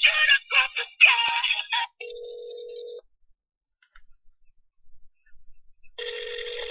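Telephone ringback tone heard through a phone: two steady purring rings about a second long, some three seconds apart, as the call is put through. The phone line's earlier audio cuts off just before the first ring.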